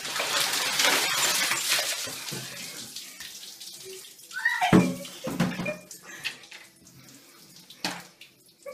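A bucket of ice water poured over a man's head: a loud rush of pouring and splashing for about two seconds, then dying away to dripping. About four and a half seconds in, a short voiced cry slides down in pitch.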